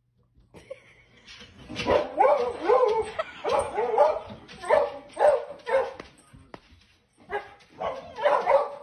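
Small dog barking and whining excitedly in a quick series of yelps, about two a second, with a short pause before a last flurry near the end.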